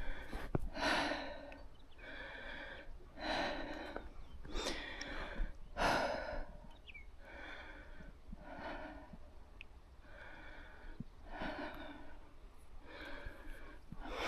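A person breathing heavily and evenly close to the microphone, a breath about every second.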